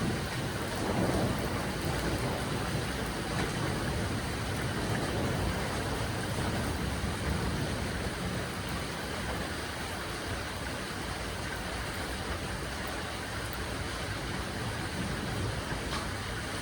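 Steady rushing noise of storm wind and rain, with wind rumbling on the microphone, swelling slightly about a second in.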